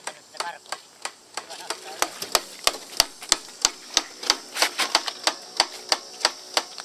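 Regular sharp mechanical clicking, about three clicks a second, growing louder about two seconds in.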